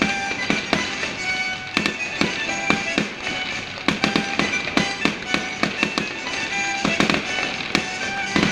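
Fireworks going off in quick succession, many sharp bangs and crackles, with music playing throughout.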